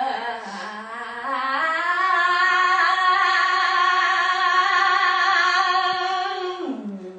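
A single voice singing one long held note with no accompaniment: it wavers and slides up into the note, holds it steady for about five seconds, then slides down near the end and stops.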